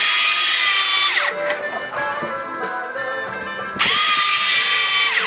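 Electric fishing reel motor winding in line: a high motor whine that winds down and stops about a second in, then spins up again past three and a half seconds and winds down near the end.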